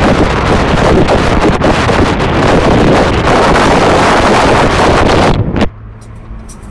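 Loud wind buffeting on the microphone over road and engine noise inside a moving car. It cuts off abruptly about five and a half seconds in, leaving a much quieter low steady hum.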